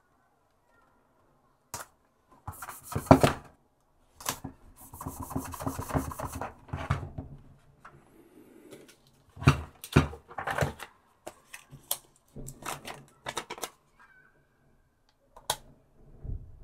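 Hands handling a plastic power-tool battery pack while pressing and smoothing stickers onto its case: scattered clicks, taps and rubbing of fingers and sticker sheets on the plastic, starting about two seconds in.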